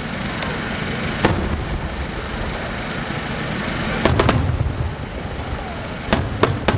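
Aerial firework shells bursting: one sharp report about a second in, a quick run of three around four seconds, and three more near the end, over a steady low rumble of the display.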